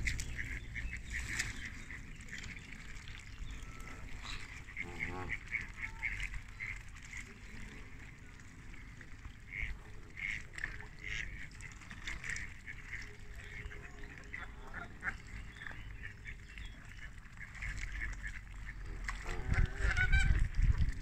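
Waterfowl calling: geese honking and ducks quacking in a flock, many short repeated calls. A low rumble comes in near the end and is the loudest sound.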